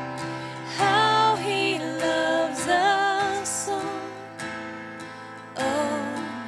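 Live worship music: strummed acoustic guitar under sung melodic phrases that swell and fall.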